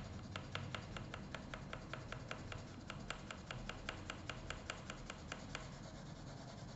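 Pencil shading back and forth on paper: a faint, quick, regular scratching of about five strokes a second that stops about a second before the end.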